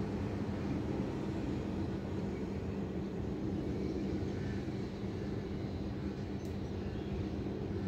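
Steady low city rumble of traffic and machinery, with a constant hum underneath and no distinct events.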